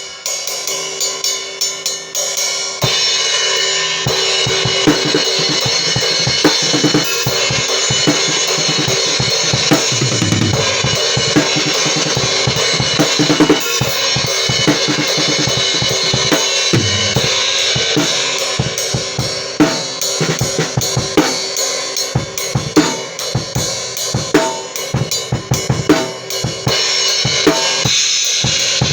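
Drum kit played with a Meinl HCS 18-inch crash-ride, a cheap MS63 brass cymbal, struck over snare and bass drum hits. The first few seconds are separate strokes; after that the cymbal wash rings almost without a break under the drums.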